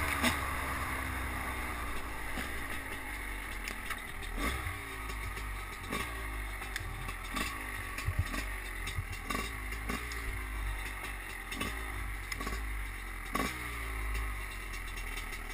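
Enduro dirt bike engine running at low revs as the bike creeps along and stops, with a short throttle blip every second or two that falls away again.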